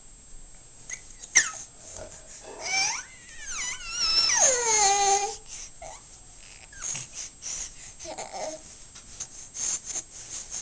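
High, drawn-out whining, whimpering calls that slide up and down in pitch, in several separate cries with short gaps; the longest, near the middle, is about a second and a half long and falls in pitch.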